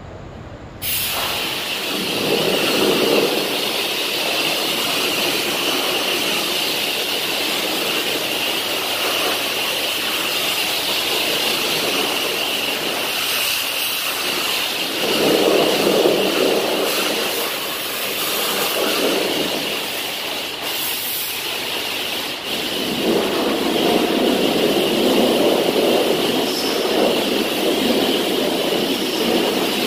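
Pressure washer spraying a high-pressure jet of water against a semi truck's wheel and cab: a loud, steady hiss that starts about a second in and swells and eases in places.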